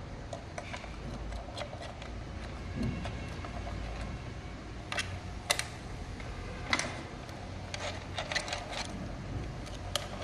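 Irregular metallic clicks and clinks of hand tools and scooter parts being handled during repair work, with a few sharper clinks in the second half, over a low steady hum.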